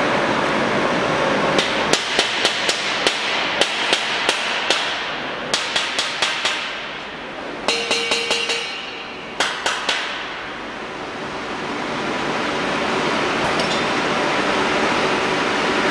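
Irregular groups of sharp metallic taps and clinks on a stainless steel tank shell being fitted into an assembly and spot welding machine, with a short rattling burst in the middle. They stop about ten seconds in, leaving only the steady hiss and hum of the factory machinery.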